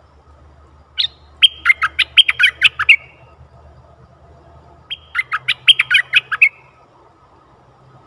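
Bulbul singing two loud phrases, each a fast run of about ten short notes lasting under two seconds. The first comes about a second in and the second about four seconds later.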